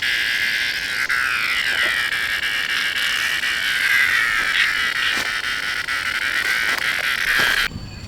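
A dense chorus of many calling animals, a high wavering band of overlapping calls that cuts off abruptly near the end.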